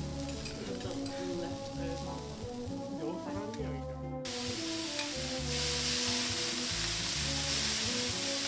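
Bean sprouts and diced fatty Kobe beef sizzling on a teppanyaki steel griddle as a chef turns them with a spatula and knife, over background music. The sizzle drops away briefly about four seconds in, then comes back louder.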